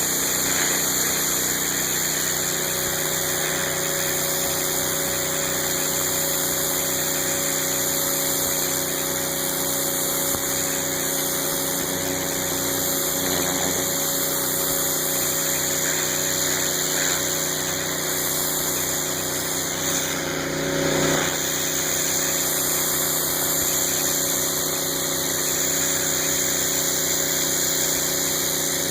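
A pressure washer's 9 hp Honda GX engine and pump running steadily, with a constant high hiss from the spray. There is a brief louder swell about twenty seconds in.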